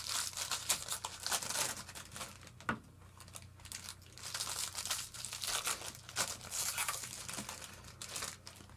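Trading-card pack wrapper being torn open and crinkled, in irregular bursts of crackling.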